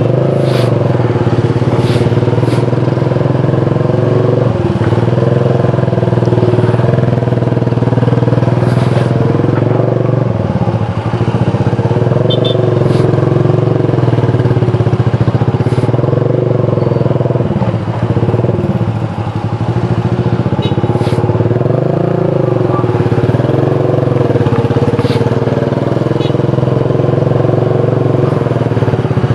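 Motorcycle engine running under way, its pitch rising and falling as the speed changes, with a few brief clicks.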